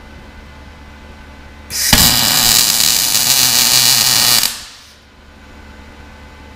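MAG (MIG) welding arc from a Sherman DigiMIG 200 welder, crackling and sizzling with spatter for about three seconds as a short bead is laid, then cutting off. A steady low hum sits underneath.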